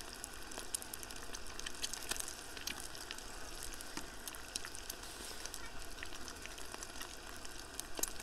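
An egg frying in oil in a small pan over a camping gas stove: a faint, steady sizzle with scattered small spits and crackles of the fat.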